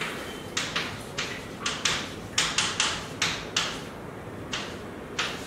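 Chalk writing on a blackboard: a quick, uneven run of about a dozen short scratching strokes.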